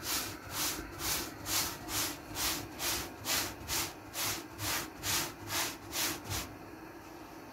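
A cotton cloth swishing in quick, even strokes as it presses and rubs a roti on a hot tawa, about two strokes a second, stopping about six and a half seconds in. A faint steady hum lies underneath.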